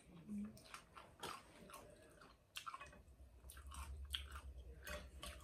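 Close-up chewing of a mouthful of rice noodles and long beans, with many small wet mouth clicks. A brief low hum sounds about half a second in, and a steady low hum comes in about three seconds in.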